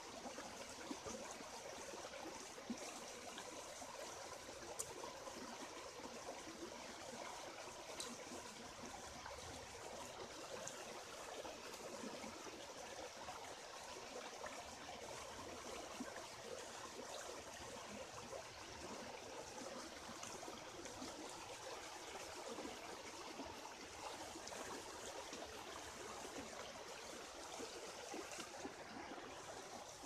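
Shallow rocky stream trickling steadily over stones, with a few faint sharp ticks scattered through.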